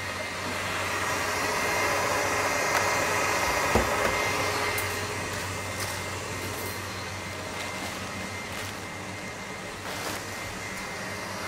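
Stand mixer motor running steadily, whipping Italian meringue as it cools before the butter is added, with a constant whine over the whirr. A soft thump about four seconds in.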